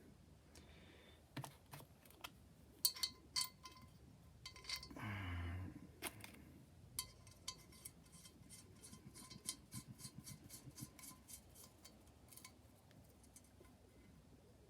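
Faint light metallic clicks and clinks from hand tools and a stud-puller stack of washers and nut on a small-block Chevy head's rocker studs, with a run of quick clicks about seven seconds in.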